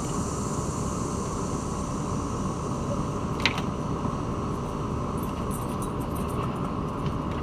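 Air-conditioning unit running with a steady hum and whoosh, with a drone of insects over it and a single sharp click about three and a half seconds in.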